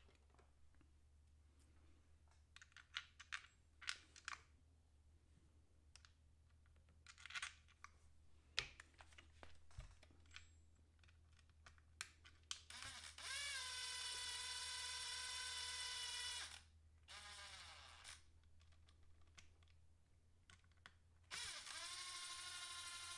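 Light clicks and clinks of small screws and metal parts being handled. Then a small electric screwdriver drives screws into the RC car's chassis: it spins up about halfway through, runs at a steady whir for a few seconds and winds down. It starts again near the end, running steadily at a lower pitch.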